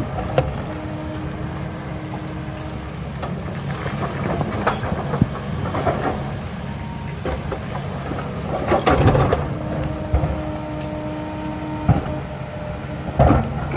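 Diesel engine of an earthmoving machine working at a steady rumble, with a hum that comes and goes over it. Irregular clanks and scrapes of digging work, loudest about nine seconds in and again near the end.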